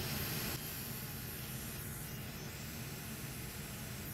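Steady hiss, like a fan or air blower running, easing slightly about half a second in.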